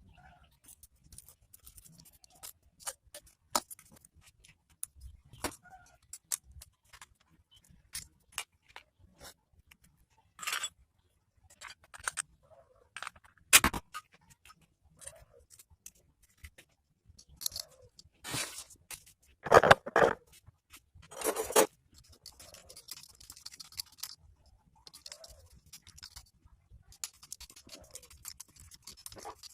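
Scattered metal clicks, taps and scrapes of hand tools and engine parts being handled while a Honda Win100 motorcycle engine is assembled. A few louder knocks and short scraping rattles come around the middle.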